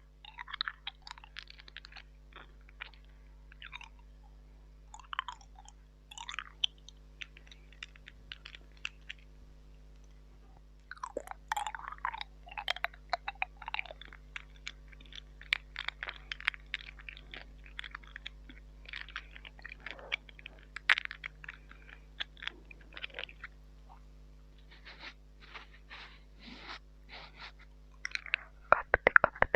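Close-miked wet mouth sounds into a mini microphone: irregular clicks, smacks and crackly chewing-like noises, coming in clusters, with a dense run of loud rapid clicks near the end. A faint steady electrical hum sits underneath.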